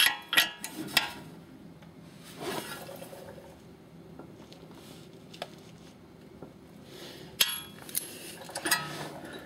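A steel socket and wrench clinking on a tie rod end's castle nut: several sharp metallic clinks in the first second, a quiet stretch while the nut is turned a fraction of a turn to line a notch up with the cotter pin hole, then more clinks near the end as the socket comes off.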